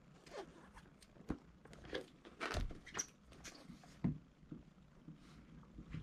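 Irregular handling noises from unboxing a keyboard: scattered taps, clicks and rustles of packaging, with a few sharper knocks spread through.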